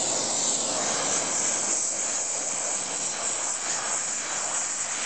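Oxy-acetylene welding torch flame burning with a steady hiss while it heats steel for a weld.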